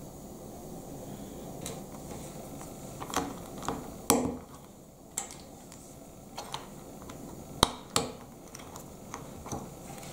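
Plastic Lego bricks clicking as pieces are handled and pressed onto a plate on a wooden table: about ten sharp, uneven clicks, the loudest about four seconds in and just before eight seconds, over a steady low hum.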